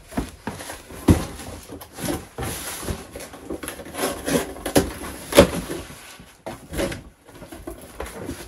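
Cardboard shipping box being handled and opened: scraping and rustling of the flaps and packing tape, with a string of sharp knocks, the loudest about five seconds in.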